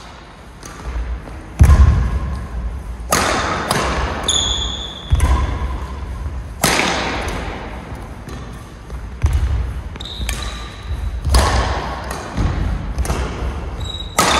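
Badminton rally on an indoor court: rackets striking the shuttlecock with sharp cracks every second or two, heavy footfalls thudding on the court floor, and a few short high squeaks from shoes.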